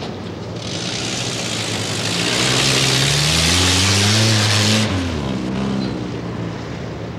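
Land Rover Series off-roader's engine accelerating away, its pitch climbing and then dropping as it drives close past, under a loud steady hiss that cuts off suddenly about five seconds in.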